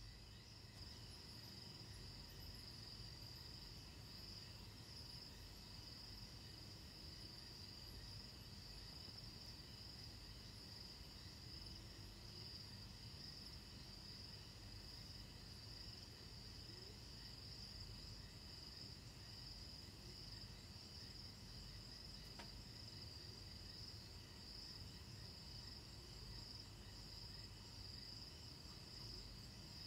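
Crickets trilling in a steady, high, continuous chorus, with a faint low rumble underneath.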